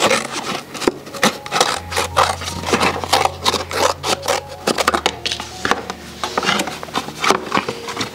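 A paper milk carton being cut down and handled: a quick, dense run of snips, crinkles and scrapes of the paperboard. Background music plays underneath.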